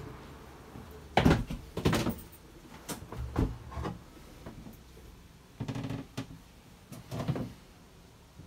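A few knocks and thumps of someone moving about inside a small wooden boat cabin, the loudest about a second in.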